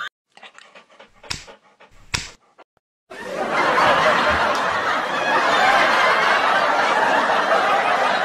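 A dog makes a loud, continuous breathy noise close to the microphone, starting about three seconds in. Before that there are only a few faint short sounds.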